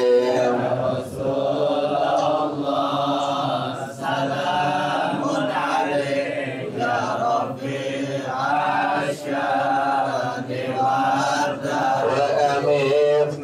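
A man chanting Arabic verses in a slow, drawn-out melody, the phrases broken by short breaths every few seconds.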